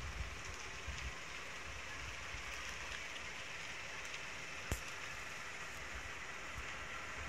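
Steady outdoor background hiss, with a few faint low rumbles near the start and a single sharp click about four and a half seconds in.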